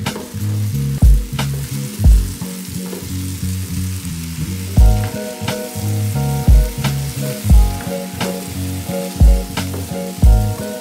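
Vegetables sizzling in a frying pan as they are stirred with a wooden spoon, under background music with a steady beat of about one thump a second; more melody comes into the music about halfway through.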